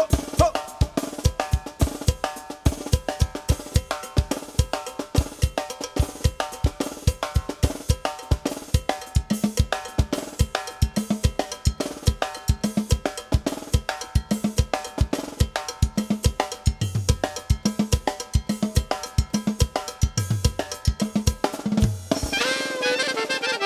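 Drum kit played in a fast, steady, driving beat of snare, bass drum and cymbal strikes. About a second and a half before the end the drumming stops and other instruments come in with held tones.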